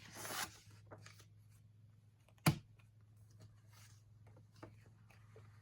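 Light handling of planner paper and a sticker: a short rustle at the start, one sharp tap about two and a half seconds in, then faint scattered ticks, over a low steady hum.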